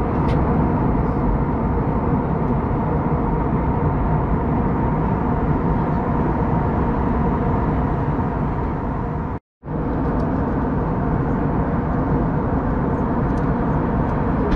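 Steady, loud noise of a passenger jet heard from inside the cabin: engines and airflow. It cuts out for a moment a little after halfway, then carries on unchanged.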